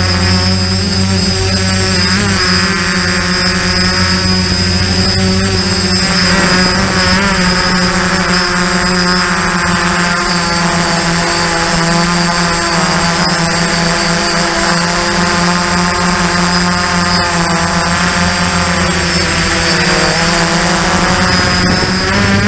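Quadcopter's electric motors and propellers heard close up from the camera mounted on the craft: a steady buzzing hum of several tones that drift up and down in pitch as the motors change speed, with a thin high whine above it.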